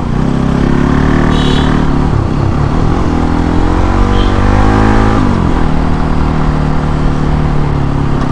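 Bajaj Pulsar NS200's single-cylinder engine through its stock exhaust, ridden hard: the revs dip about two seconds in, climb steadily from about three seconds, fall sharply just after five seconds, then hold steady.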